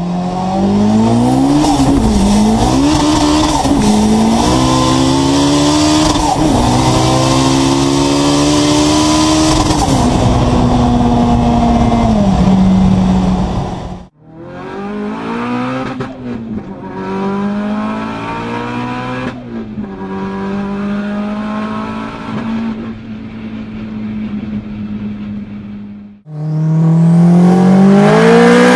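High-revving car engines, rising and falling in pitch as the revs climb and drop. The sound breaks off abruptly twice and resumes with a different engine, the middle stretch quieter than the first and last.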